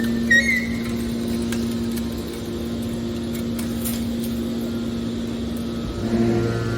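Hydraulic scrap metal baler running with a steady mechanical hum from its motor and pump, with a brief high squeal about half a second in. Near the end the sound grows louder and a lower note comes in, as the machine's load changes.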